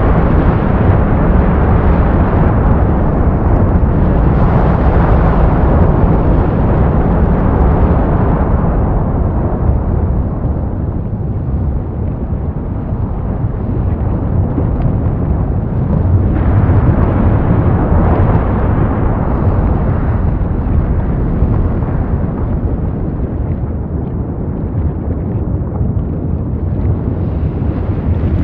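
Wind noise from a drone-mounted camera's microphone flying at speed: a loud, continuous rumbling rush with no distinct motor tone. It thins out somewhat around nine seconds in and surges again abruptly about sixteen seconds in.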